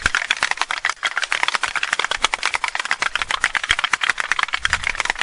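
Many wooden Easter clappers (Holzklappern) worked together, a dense, fast and uneven clatter of wooden clacks. This is the Holy Week clapping that stands in for the silent church bells and calls people to services.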